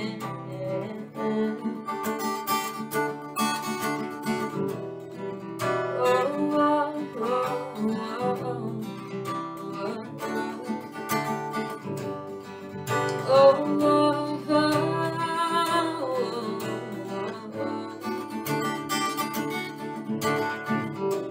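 Acoustic guitar strummed steadily as an instrumental break, with a woman's wordless singing drifting over it in places.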